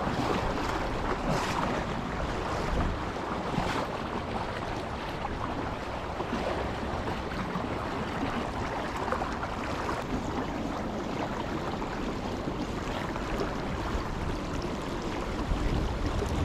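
River current flowing steadily past the angler's position, with wind noise on the microphone.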